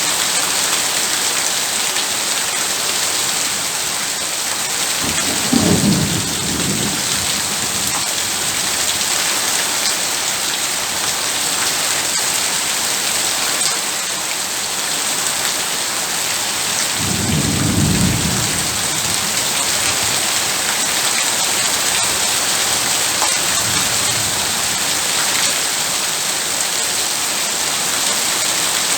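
Heavy rain falling steadily, with low rolls of thunder rumbling through it, twice clearly (about six seconds in and again about seventeen seconds in) and once more faintly near the end.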